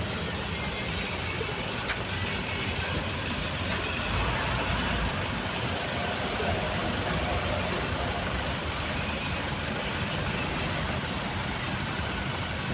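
Steady rushing background noise with no clear pitched calls.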